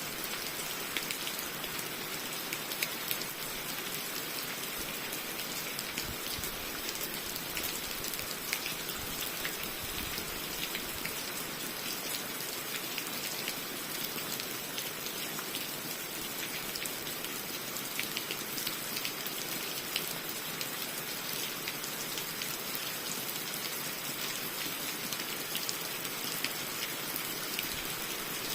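Steady rain falling, an even hiss with many small sharp drop ticks.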